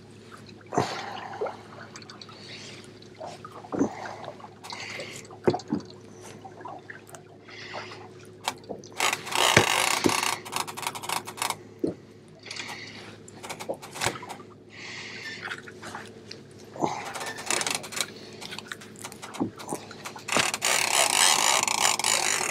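Irregular small clicks, taps and scrapes of hands and tackle as a hook is baited at a boat's bait board, with stretches of rushing noise about halfway through and again near the end.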